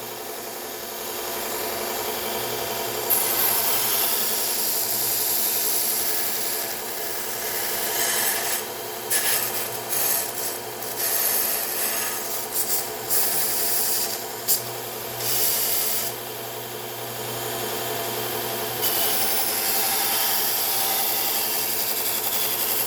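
Bucktool slow-speed belt grinder running with a steady motor hum while a knife blade is drawn across the abrasive belt. The hiss of steel on the belt comes and goes in several passes.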